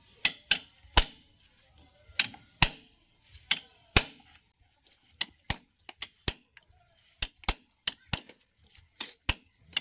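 Steel hammer with a wooden handle striking a socket extension bar held against the PTO shaft housing of a John Deere tractor, driving a part in around the shaft. About eighteen sharp metallic blows come in uneven groups of two or three, the heaviest in the first few seconds and lighter taps after.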